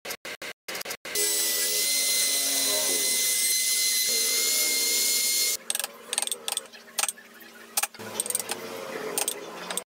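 A handheld rotary tool whirring steadily as its bit drills into small wooden plates, starting about a second in and stopping after about four seconds. Before it, quick rubbing strokes of a hand tool on wood, about four a second; after it, irregular scratching of a hand chisel carving small letters in wood.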